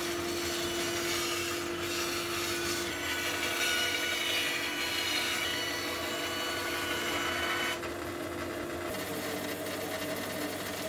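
Bandsaw ripping the tongue and groove off a century-old reclaimed floorboard: a steady motor hum under the rasping cut of the blade through the wood. The cutting noise eases about eight seconds in.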